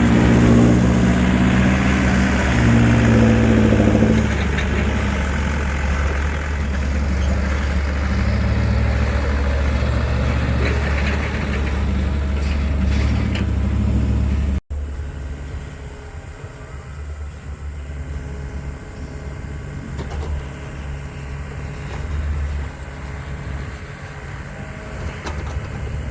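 Mini excavator engine running steadily, with some shifting pitched tones in the first few seconds. About halfway through, the sound cuts out for an instant and resumes noticeably quieter.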